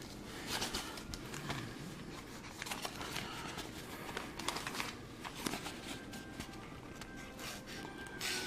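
Coast EDC folding knife blade cutting and scraping at material, a run of short irregular scrapes, clicks and crinkles. The blade is not very sharp and has to be forced through the cut.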